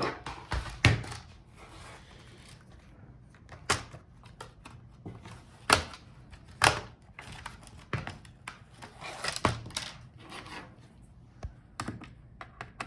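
Plastic snap clips of a Dell Latitude 5531's bottom cover clicking loose one after another as the cover is pried off with a plastic pry tool: irregular sharp clicks and knocks, a second or two apart.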